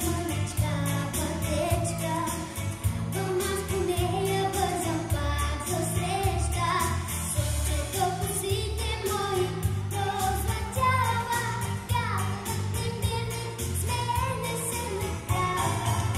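A group of young girls singing a song together into microphones, over a recorded pop-style backing track with a steady, repeating bass line.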